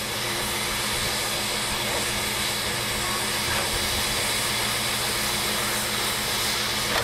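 Standing steam tank locomotive 75 1118 giving off a steady hiss of steam, with a low steady hum beneath it.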